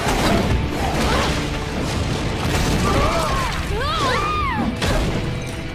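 Cartoon fight sound effects: a string of heavy thuds and crashes of cracking stone over a dramatic score, with a woman's short effort cries about three to four and a half seconds in.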